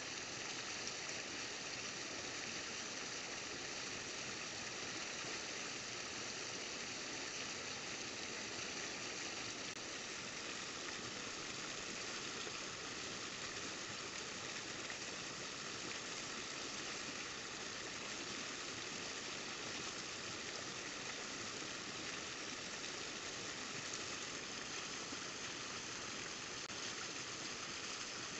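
Steady rush of water pouring over a rock spillway and churning into white water below.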